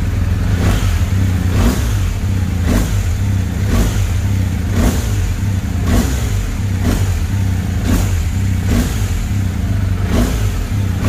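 BMW R 1250 GS boxer-twin engine revved in quick throttle blips about once a second while standing, the revs picking up with no lag, showing throttle response with a Rapid Bike Smart auto-tune module fitted.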